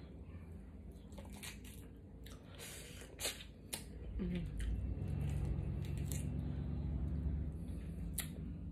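Close-miked eating of snow crab legs: shells cracking and snapping as the meat is picked out by hand, with wet chewing and squishing. A short hum of enjoyment comes just after four seconds in.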